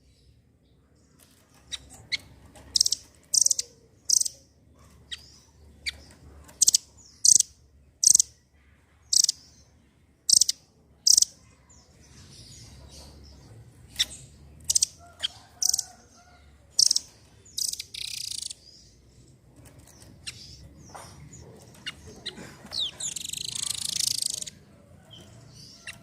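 Blue nuthatch (rambatan doraemon) calling: a series of sharp, high chips, about one a second, then two longer harsh, buzzy calls near the end.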